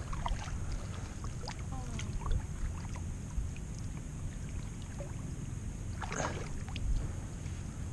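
Kayak paddles in calm sea water: light drips and small splashes from the blades, with one louder paddle splash about six seconds in, over a low steady rumble.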